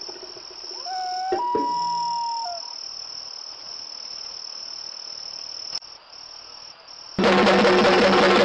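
Steady high-pitched insect trill, as of crickets, with a few short sliding pitched tones about a second in; the trill stops about six seconds in and loud music comes in about a second later.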